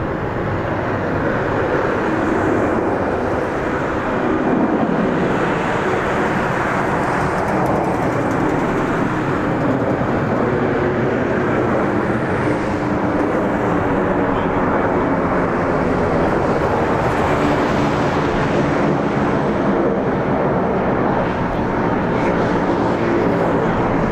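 Boeing 747's four jet engines running at takeoff power: a loud, steady roar that swells slightly over the first few seconds and then holds.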